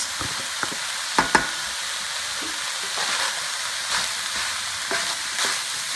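Browned ground beef and chopped mushrooms sizzling in a frying pan, with two sharp knocks a little over a second in. A wooden spoon scrapes and stirs through the pan in the second half.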